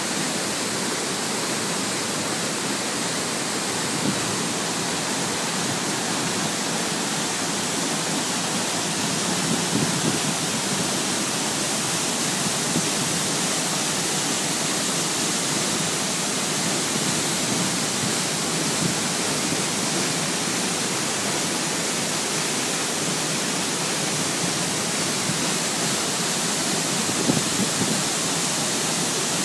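Waterfall falling steadily, a constant rushing hiss of water with no change in level.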